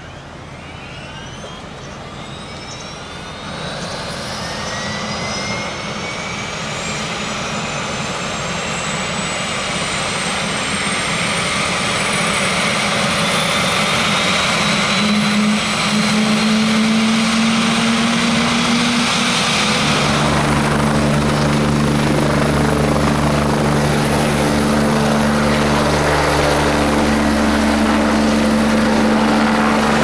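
Kawasaki BK117 helicopter's twin turbine engines spooling up on the pad: a whine rises steadily in pitch while the sound grows louder. About twenty seconds in it changes to a loud, steady low rotor drone at full power, as the helicopter readies to lift off.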